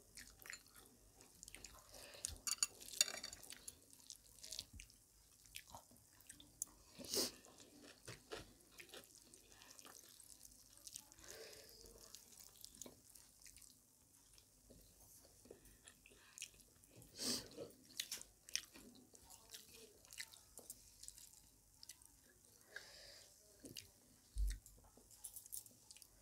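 Faint chewing and wet mouth sounds of two people eating rice and curry with their hands, with occasional short, sharper clicks.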